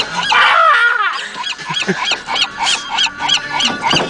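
A flock of seagulls squawking over and over, short repeated calls about three a second, with a longer falling cry about half a second in.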